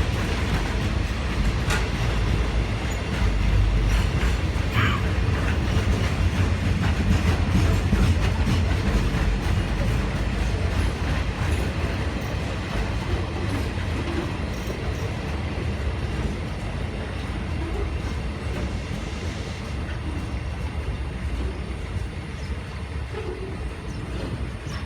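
Cement freight train rolling slowly through the station with a steady low rumble, gradually growing quieter as it slows to a stop, with a brief high squeal about five seconds in.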